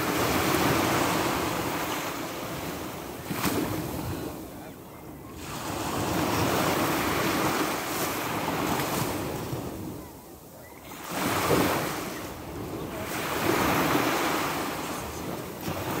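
Sea waves breaking and washing on the shore: three long surges of surf, each swelling up and falling back, with lulls about five and ten seconds in.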